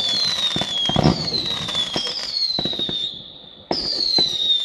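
Fireworks going off: a run of high whistles, each falling in pitch over about a second and following one another closely, with sharp cracks and pops among them. The whistling pauses briefly about three seconds in before another whistle starts suddenly.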